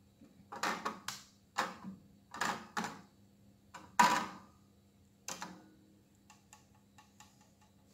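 Oval metal flan mold held in pan tongs clinking and knocking against the gas stove's grate as it is swirled over the flame to caramelize the sugar: a string of sharp metallic clicks, the loudest about four seconds in, with fainter ticks near the end.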